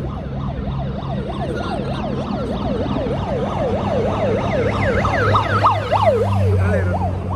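Convoy vehicle sirens in a fast yelp, sweeping up and down about three or four times a second. A second, higher-pitched siren joins about halfway through, and a low drone underneath grows louder toward the end.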